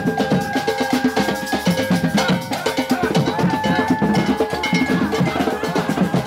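Music with fast, busy drumming and long held melody notes over it.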